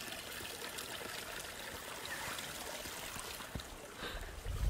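Spring water trickling steadily from a clootie well, with a low rumble near the end.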